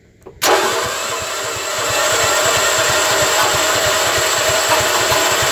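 Generator's electric starter cranking the engine, beginning about half a second in and keeping on steadily with fast pulsing and a whine, without the engine catching: the engine is cold and slow to start.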